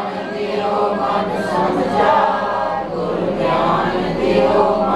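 Sikh kirtan: a group of voices chanting a Gurbani hymn line together, the voices blending into one another.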